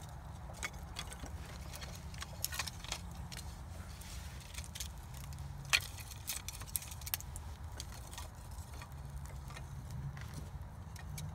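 Small kindling fire of thin split sticks and feather-stick curls crackling with sharp irregular pops, with light wooden clatter as more thin sticks are laid on the flames around the middle.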